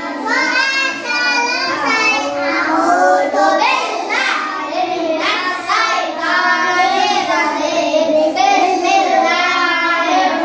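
A class of young children chanting a prayer together in unison, in a sing-song recitation.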